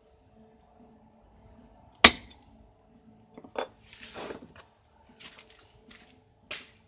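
One sharp hammer blow on metal about two seconds in, followed by several lighter clinks and scrapes of small steel parts being handled on the bench, the hammering of a rivet or center punch while fitting a ring to a motorcycle clutch basket.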